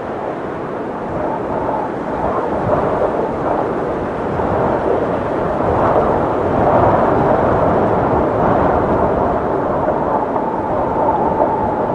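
Loud, continuous roar of tornado-force wind, swelling about halfway through, with a faint whistling tone near the end.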